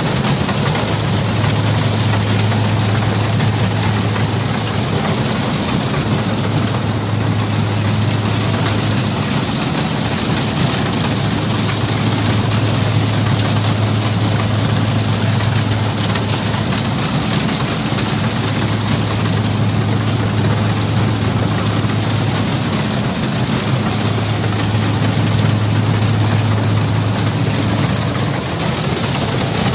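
Rice combine harvester's engine running steadily: a continuous low hum over an even mechanical noise.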